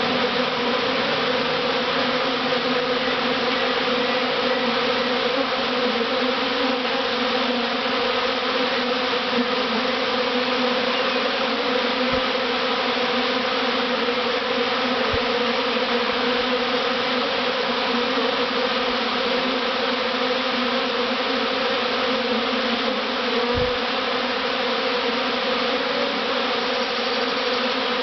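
A large swarm of honeybees buzzing close up: a steady, dense, many-layered hum.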